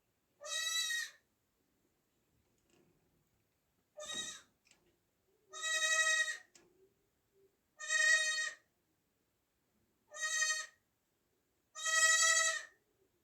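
Newborn goat kid bleating: six high, steady-pitched calls, each under a second long, a second or two apart.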